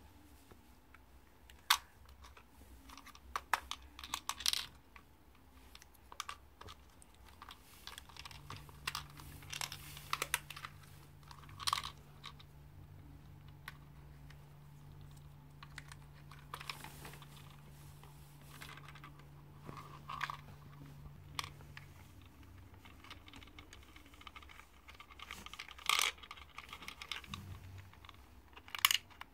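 Small plastic clicks and taps as a toy-telephone candy dispenser is handled, its buttons, handle and little candy tray clicking irregularly, a few clicks louder than the rest. A faint low hum sits under the middle part.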